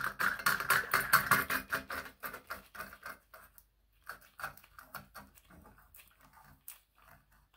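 Chrome dual-flush push button being screwed into a ceramic toilet cistern lid: a fast run of small clicks and scrapes as it turns on its thread, thinning out after about three seconds.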